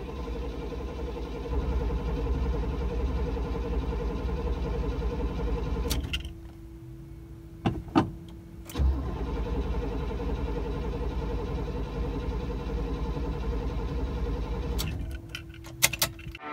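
Starter cranking the 1976 Cadillac Fleetwood Brougham's 500-cubic-inch V8 in a rhythmic, pulsing churn that turns the engine over without it catching. About six seconds in the cranking breaks off with a few clicks while a steady single-note tone comes on, and then cranking resumes for several more seconds. It is a cold hard start that the owner puts down to a sticky carburetor needle and seat as most likely.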